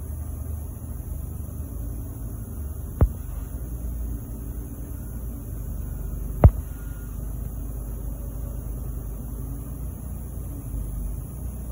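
Steady low background hum, with two sharp clicks about three and a half seconds apart, the second louder.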